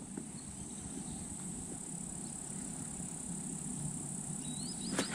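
Quiet outdoor ambience with a faint, steady high-pitched insect chirring, a short warbling bird call about four and a half seconds in, and a light click near the end.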